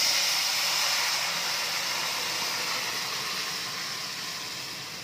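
Boiled ash gourd and its hot cooking water poured into a wok of hot oil and spices, hitting the oil with a loud hissing sizzle that slowly dies down.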